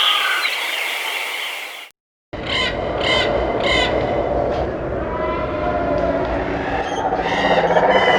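Birds chirping over the steady wash of ocean waves, cutting off about two seconds in. After a brief silence, another recording starts: a steady low rumble with a series of short, harsh bird calls repeating over it.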